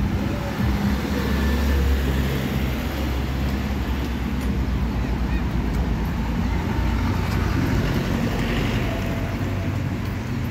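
Street traffic: motor vehicles running and passing, with a steady low engine hum.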